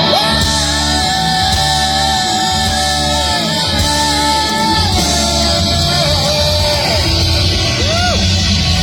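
Rock music with a singer holding long, bending notes over electric guitar and a steady, dense low end.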